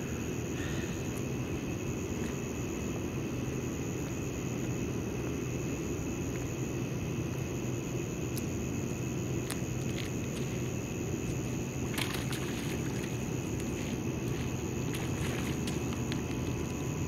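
Steady low outdoor rumble with a thin, constant high-pitched drone above it, and a few faint clicks about ten and twelve seconds in.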